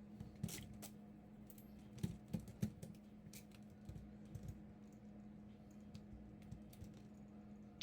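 Faint, scattered small clicks and ticks of a Xiaomi precision screwdriver backing tiny screws out of a laptop's plastic screen housing, over a steady low hum.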